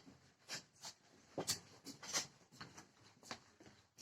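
A few scattered soft knocks and rustles, each short and sharp, the loudest about one and a half and two seconds in, over a faint room hiss.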